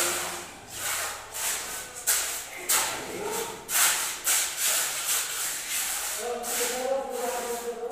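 Mason's steel trowel scraping and spreading wet cement mortar while laying a floor, in quick repeated strokes of about two to three a second.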